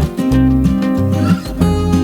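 Background music: guitar over a bass line whose notes change in a steady rhythm.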